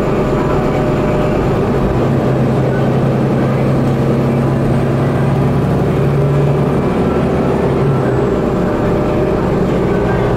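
Cummins ISL inline-six diesel engine of a Bustech ADi bus, heard from inside the rear of the passenger cabin, running steadily under way with an even drone. Its deepest rumble eases about two seconds in and comes back near the end.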